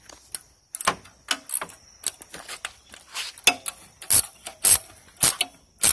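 Socket wrench ratcheting and clinking on metal as the mounting bolts of a T-80 air compressor bracket are tightened down, locking in the tension on a new V-belt. The clicks come in irregular runs, several a second, and grow louder in the second half.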